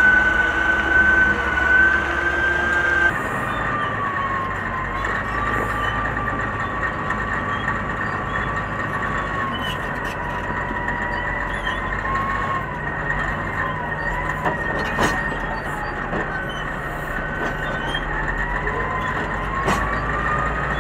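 Caterpillar motor scraper's diesel engines running as it drives, a steady low drone with a high whine that wanders up and down in pitch. The sound changes abruptly about 3 seconds in, and there are a couple of brief sharp knocks later on.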